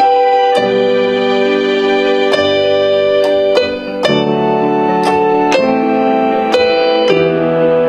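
Electronic keyboard playing a slow melody with sustained chords, a new note struck every half second to a second.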